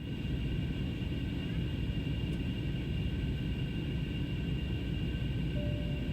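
Steady cabin noise of a British Airways Airbus A321 in flight: a constant low rumble of engine and airflow with a faint steady high whine. A brief soft tone sounds near the end.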